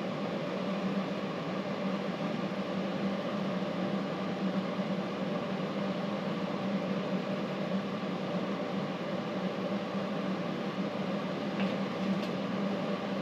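A fan running steadily with a constant low hum and an even whoosh, with a couple of faint ticks near the end.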